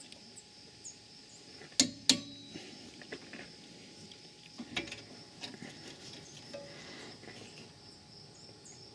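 Click-type torque wrench on a rear brake caliper carrier bolt giving two sharp clicks a fraction of a second apart about two seconds in, the sign that the bolt has reached its 100 N·m (74 ft-lb) setting; a few lighter metal ticks follow as the wrench is handled. A steady high insect drone runs behind.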